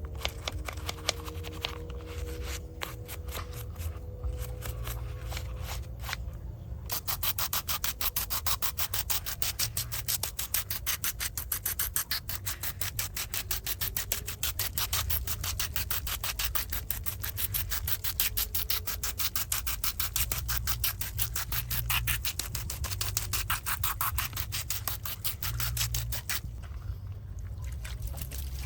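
Fast, regular scrubbing strokes against the muddy die-cast model car, preceded by a few scattered clicks and handling noises, stopping shortly before the end.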